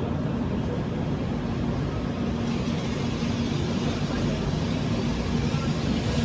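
Tokaido Shinkansen train at the platform with a steady low hum, its running noise building gradually from about two seconds in as it starts to pull away.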